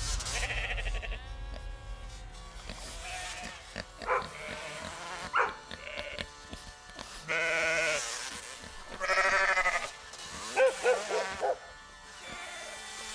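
Sheep bleating: several separate calls with a wavering pitch, the loudest about halfway through and a few seconds later.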